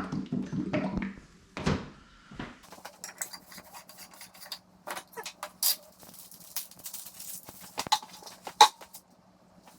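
Metal clinks, knocks and scraping from working with a can of Rust-Oleum paint and a brush, with several sharp clinks in the second half, over a faint steady hum.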